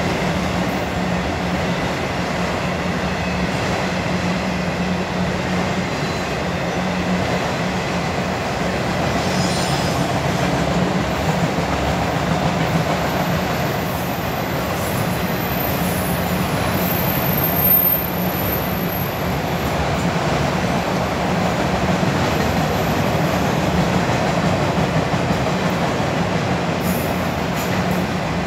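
Autorack freight cars rolling past steadily: a continuous rumble of steel wheels on rail, with a faint high squeal coming and going partway through.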